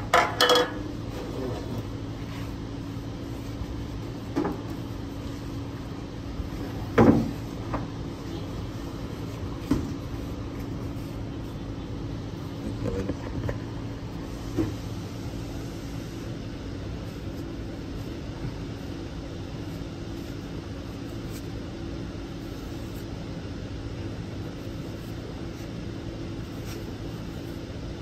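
Steady low hum of a repair-shop bay with scattered short knocks and clanks, the loudest about seven seconds in.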